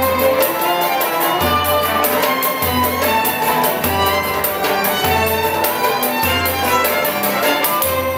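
Moroccan Andalusian āla orchestra playing an instrumental passage: bowed strings with cello, oud and a tar frame drum. A low bass note restarts about every second and a bit.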